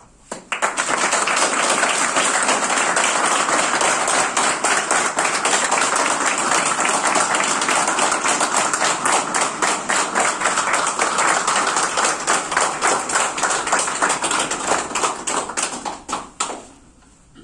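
Audience of a few dozen people applauding, starting about half a second in, holding steady for about fifteen seconds, then thinning to scattered single claps and stopping shortly before the end.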